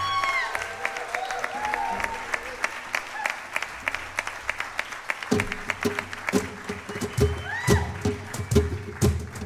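Flamenco palmas: rhythmic handclaps at about four a second, taking over as a held sung note fades out about half a second in, with a few short vocal calls over them. A little over five seconds in, a cajón joins with deep low strikes and a steady low note sounds underneath.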